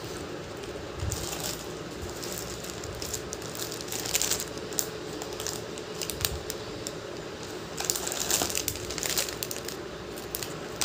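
Silver jewellery set being handled: scattered light clinks and rustling, busiest about four seconds in and again around eight to nine seconds, over a faint steady hum.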